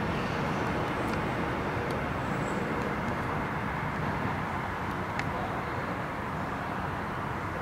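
Airport Railroad (AREX) commuter electric train rolling away along the track: a steady rumble and hiss of wheels and running gear, slowly fading.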